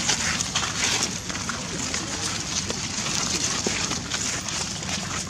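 Steady outdoor noise full of small crackles, like dry leaves rustling underfoot, with faint voices in the background.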